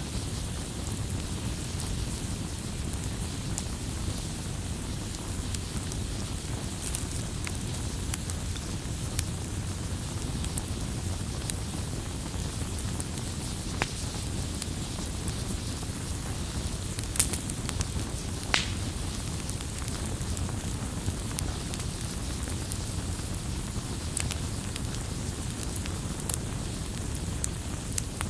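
Firewood burning: a steady low rumble of flames with scattered crackles and sharp pops, the loudest pops coming about two-thirds of the way through.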